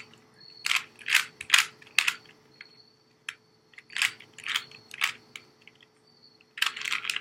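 Plastic Rubik's Cube being turned by hand: quick clicking clacks of its layers rotating, in groups of a few turns with short pauses between, and a denser run of turns near the end.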